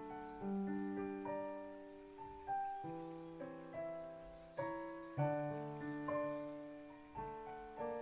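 Solo piano playing a piece of chords and single notes, struck every half second to a second, each left to ring and fade.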